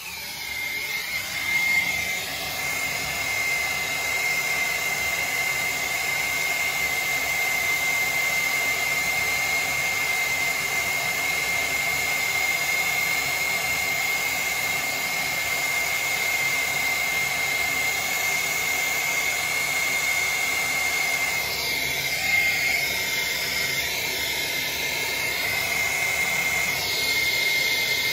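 Hose-fed plumber's torch flame burning steadily with a rushing hiss and a steady high whistle while it heats a brass tub-spout fitting for soldering.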